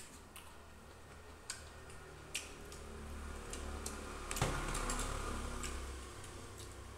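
Spoons clicking against plates and bowls at a meal: a few light, scattered clicks and a louder knock a little over halfway through, over a low steady hum.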